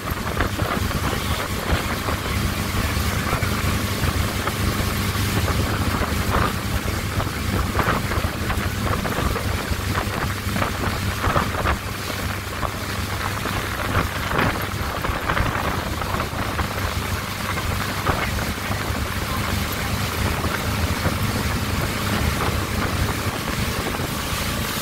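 Motorboat running at speed while towing a tube, a steady low engine drone under the rushing water of its wake, with wind buffeting the microphone in gusts.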